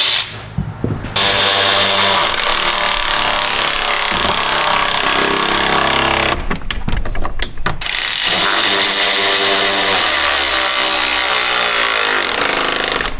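A power tool motor running bolts in, in two long runs of about five seconds each with a short break about six seconds in; its pitch drops as it winds down near the end.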